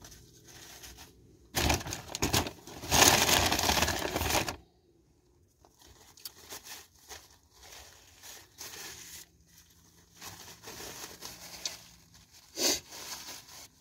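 Paper sandwich wrapper crinkling and tearing as it is unwrapped by hand, loudest for about three seconds starting near two seconds in, then lighter scattered rustling of the paper.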